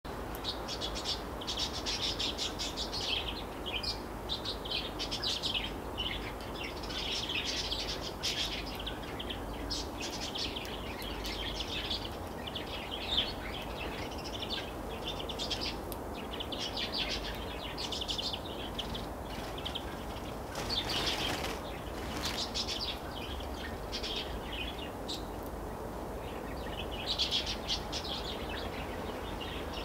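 European greenfinches chirping and twittering in repeated bursts of high calls with short pauses between them. A brief rushing noise comes about two-thirds of the way in.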